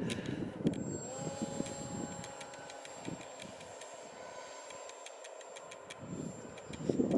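Wind buffeting the microphone in uneven gusts, growing strong near the end, over the faint steady whine of the Multiplex Easystar II's small electric motor.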